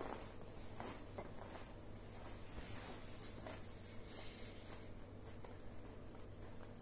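Faint small-room ambience with a steady low hum, broken by a few soft rustles and light clicks, most noticeably about one and three and a half seconds in.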